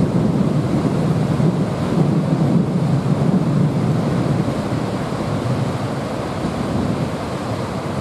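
Steady rush of white water pouring over a low river weir.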